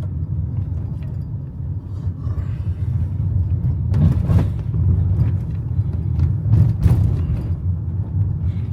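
Car driving, heard from inside the cabin: a steady low road and engine rumble, with a few short knocks about four and seven seconds in.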